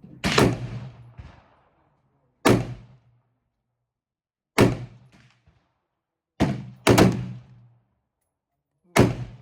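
Rifle shots at a shooting range: six sharp reports, each with a short echo tail, roughly every two seconds, two of them about half a second apart near seven seconds in.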